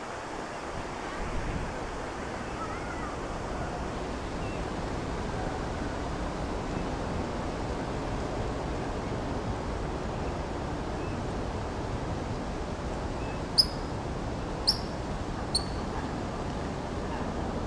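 Steady rushing outdoor background noise, with three short, sharp high-pitched bird calls about a second apart around three-quarters of the way through.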